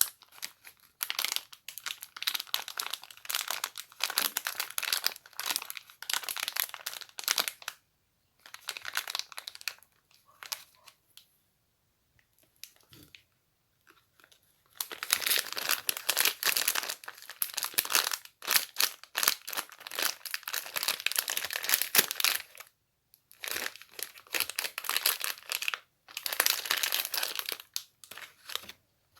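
Close rustling and crinkling of a crinkly material, in bouts of a few seconds with short gaps and a longer pause about twelve seconds in.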